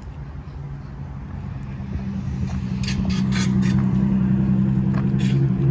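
Car running, a steady low engine and road drone that grows louder over the first three seconds. A few short hissy sounds come about three seconds in and again near the end.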